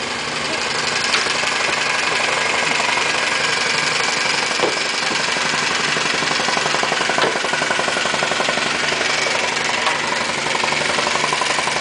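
An engine running steadily with a fine regular pulse, and a few short, sharp knocks now and then.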